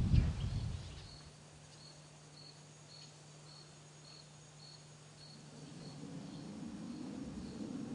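A cricket chirping steadily, a short high chirp a little under twice a second, fading toward the end. Underneath, a loud low rumble dies away in the first second, a steady low hum runs until past the middle, and a low rumble builds again near the end.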